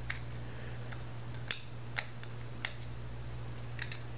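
A handful of small, sharp clicks and taps, about six spread across a few seconds: a small screwdriver and plastic parts being handled while the screws are worked out of a Syma X5C quadcopter's plastic camera mount. A steady low hum sits underneath.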